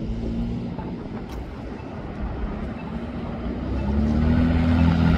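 Street traffic: the steady noise of car engines and tyres, with one engine's hum growing louder near the end.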